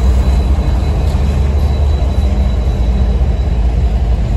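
Freight train's covered hopper cars rolling past close by: a loud, steady rumble of steel wheels on the rails.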